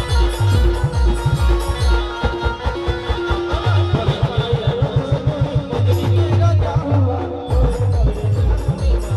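Adivasi band rodali music: a sustained melody line of held notes over heavy, steady drum beats, with a fast run of drum strokes about halfway through.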